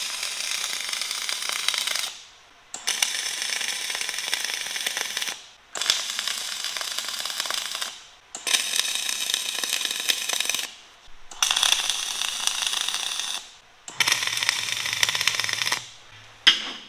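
MIG welding arc crackling in six bursts of about two seconds each with short breaks between: a run of tack welds.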